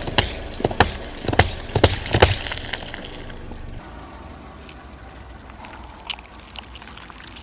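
Objects crushed under a car tyre: a quick run of sharp cracks and crunches for the first two and a half seconds, then a much quieter steady hiss with a few faint clicks.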